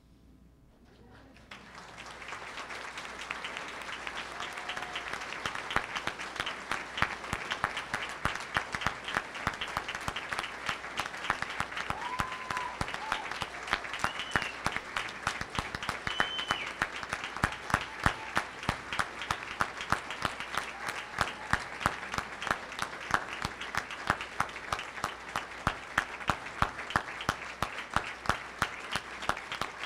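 A standing crowd applauding, the clapping swelling up about two seconds in and then going on thick and steady. A few short whoops rise over it.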